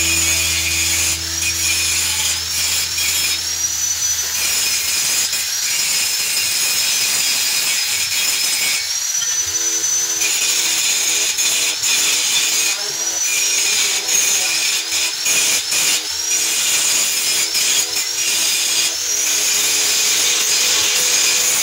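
Angle grinder grinding down the welded joints of a steel bicycle frame to smooth them. Its high whine dips several times and climbs back.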